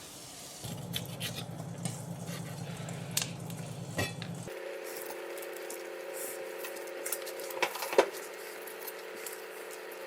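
Kitchen utensils and dishes clinking and knocking during food prep, a scatter of sharp clicks with one louder knock near the end, over a steady hum that shifts in pitch partway through.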